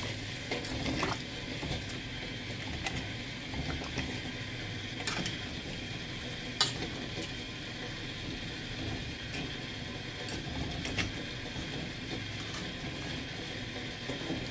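Metal spoon stirring chicken and vegetables in broth in a metal pot, with a few sharp clinks of the spoon against the pot, the loudest about six and a half seconds in, over a steady low hum.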